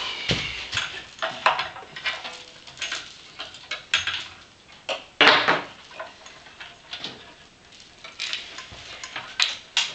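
Metal hardware clinking and rattling with scattered knocks as parts are handled on a metal tube frame, irregular throughout and loudest about five seconds in.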